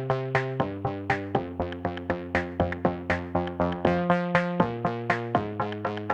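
Background music: a light electronic track with plucked synth notes and a steady beat.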